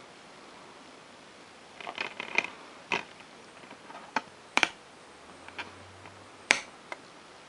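A plastic DVD case being handled: a series of sharp clicks and clacks with some light rustling, about six distinct snaps spread across several seconds.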